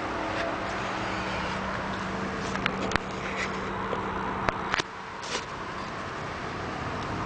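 Steady outdoor background noise with a low hum, broken by a few sharp clicks and a short rustle around the middle.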